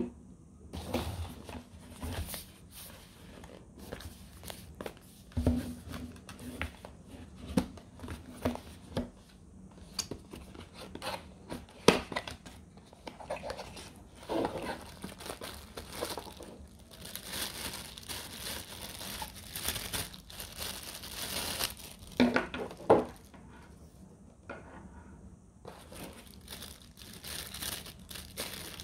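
Cardboard box flaps and plastic packaging being handled as an action-camera accessory box is opened and a plastic handlebar mount taken out: irregular crinkling and rustling, with scattered sharp clicks and knocks on a wooden tabletop. A denser stretch of crinkling comes a little past the middle.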